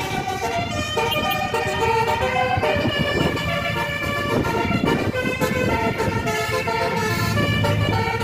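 A tour bus's multi-tone 'telolet' basuri horn playing a melody, its notes changing every fraction of a second, over a low engine rumble.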